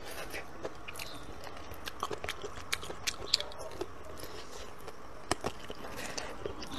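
Someone chewing and gnawing on duck feet: irregular small sharp clicks and crunches of teeth on bone and cartilage.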